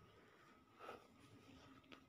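Near silence: faint room tone, with one soft, brief rustle about a second in.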